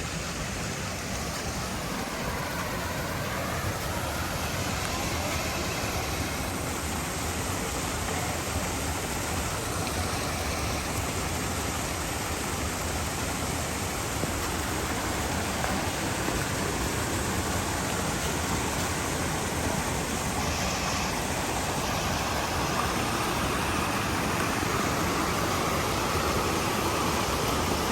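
Steady rush of a waterfall: falling water giving an even, unbroken noise, slowly growing a little louder.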